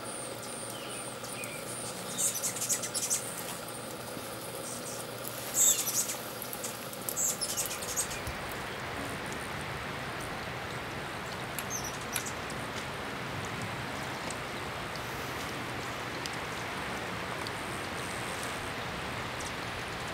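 Hummingbirds' high, squeaky chip notes in quick clusters during the first several seconds, then a steady hiss of background noise.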